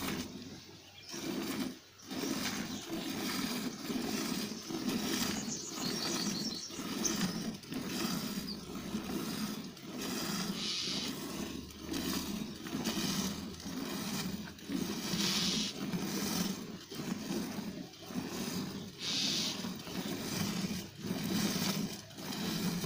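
Milk squirting by hand from a cow's teats into a steel milk pail, the strokes going in a steady rhythm of about one squirt a second.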